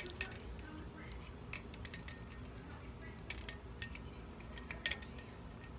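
Scattered light clicks and taps from a detached ceiling-fan light kit, its plastic housing and wires being handled, with a few sharper ticks about three and five seconds in.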